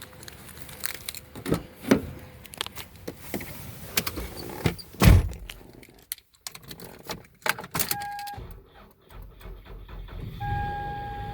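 Clicks, knocks and key jangles as the car door and keys are handled. Near the end a steady electronic tone sounds and a low engine rumble starts: the Toyota Sienna van starting on jumper cables from another car.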